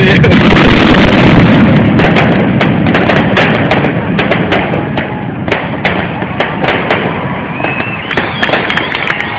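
Fireworks finale: a dense, continuous rumble of bursting shells with many sharp crackles. It thins out and grows quieter toward the end as the last shells burst.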